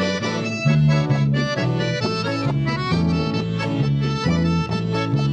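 Gaúcho band music: a button accordion (gaita) leads an instrumental break over bass and rhythm backing, in a steady bouncing dance rhythm.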